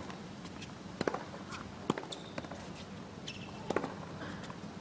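Tennis rally on a hard court: sharp pops of a tennis ball struck by rackets and bouncing, spaced about a second or more apart, with a few short squeaks in between.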